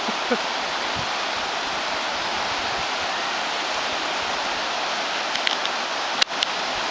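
Whitewater river rapids rushing steadily over rocks, with a sharp click about six seconds in.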